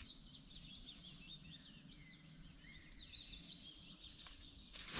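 Small songbirds singing faintly, a continuous run of quick, warbling chirps. Just before the end a rustle of handled tent fabric begins.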